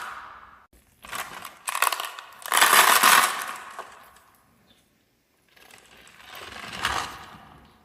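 Marbles rolling and clattering along a wooden marble run, in two bursts of clacking about a second in and again around three seconds. A second rolling run builds up and peaks near the end.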